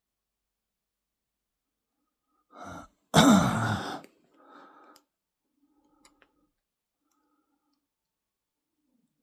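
A man's short breath in, then a loud sigh that falls in pitch, followed by a fainter breath out.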